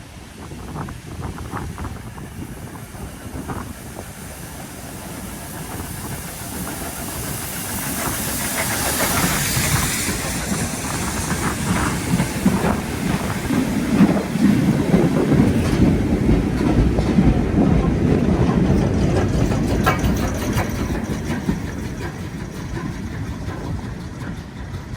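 A steam-hauled goods train, top-and-tailed by Taff Vale Railway Class O2 tank No. 85 and a BR Standard Class 2 locomotive, passes by. A burst of steam hiss comes about a third of the way in. The wagons then rumble and clatter over the rail joints, loudest around the middle, and fade near the end.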